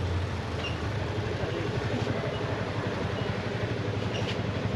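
Street traffic noise with car and motorcycle engines idling close ahead in slow traffic, a steady low rumble.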